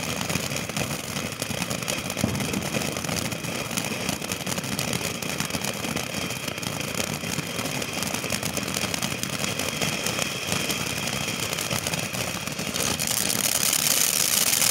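Ground fountain firework spraying sparks with a steady hiss, growing louder and brighter near the end.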